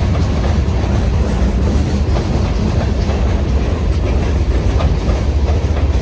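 Providence & Worcester freight train of loaded limestone cars rolling on the rails: a steady heavy rumble with scattered clicks of wheels over the track.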